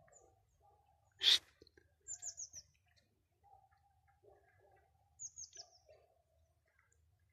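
A small bird calling twice, each call a quick run of four high, falling chirps, about three seconds apart. A single short, sharp, loud sound comes just over a second in.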